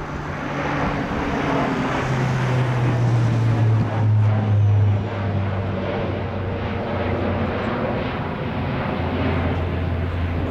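Lockheed Martin C-130J Hercules flying overhead in a display pass, its four Rolls-Royce AE 2100 turboprops and six-bladed propellers giving a deep, steady drone. The drone is loudest from about two to five seconds in, and its pitch sits a little lower after that.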